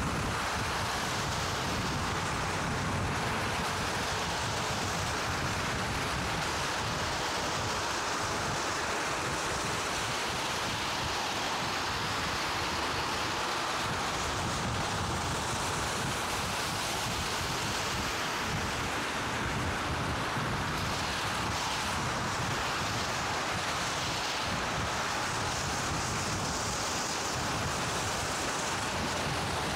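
Steady rush of wind over the microphone of a bicycle-mounted action camera riding at speed, mixed with tyre hiss on a wet, snow-covered path.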